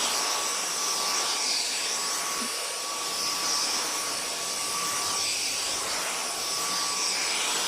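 Dyson DC35 cordless stick vacuum running steadily: a high rush of air with a faint motor whine, with no pulsing or cutting out now that the blocked brush head, bin and filter have been cleared.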